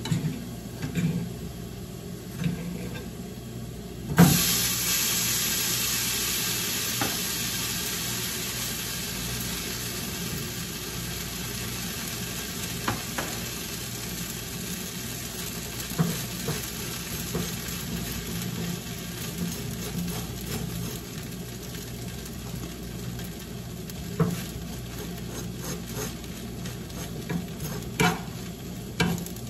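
Food frying in a hot pan on a gas stove: a sudden loud sizzle about four seconds in as a slice of bread goes into the pan, fading slowly over the following seconds, with spatula and fork taps and scrapes against the pans.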